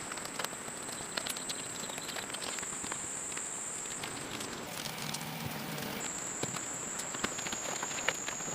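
Insects droning steadily at a high pitch, with scattered small clicks and rustles. Midway the drone briefly gives way to a higher, thinner hiss, then returns.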